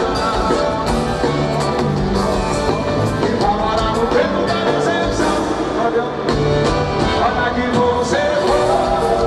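Live forró band music from a concert stage, with a singer's voice over the band.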